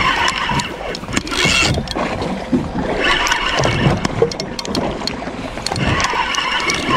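Penn spinning reel being cranked to bring in a hooked fish: a recurring whirring of the reel's gears that comes and goes, with scattered clicks.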